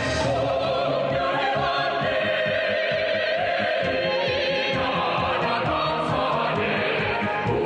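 Music with a choir singing sustained, wavering notes over an accompaniment.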